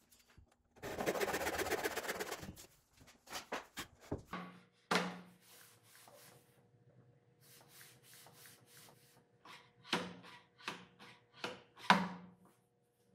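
Wooden jig parts handled on a table saw's steel top. A plywood sled rubs and scrapes across the table for about two seconds near the start, followed by a series of hollow wooden knocks as the pieces are set down, the loudest near the end.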